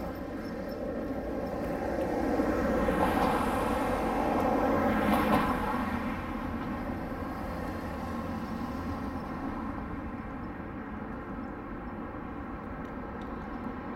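Street traffic on a road with tram tracks: a steady low hum of road vehicles and trams. A vehicle passes close by, swelling about two seconds in and easing off after about six seconds.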